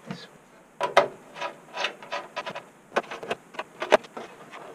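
Hands working inside the sheet-steel chassis of an HP Vectra VL400 desktop PC, taking out screws and parts: a quick, uneven run of about a dozen sharp metallic clicks and clunks.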